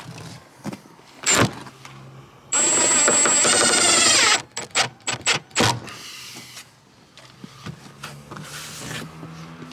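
A cordless power drill runs at speed for about two seconds with a steady high whine, then spins down. Short clicks and knocks of handling follow.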